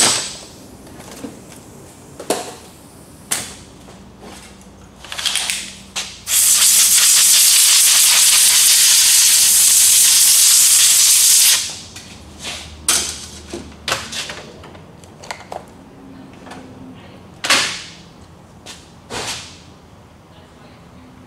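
Compressed-air blow gun hissing in one steady blast for about five seconds, blowing off the ring gear bolts. Before and after it, short clinks and knocks of tools and parts handled on a steel workbench.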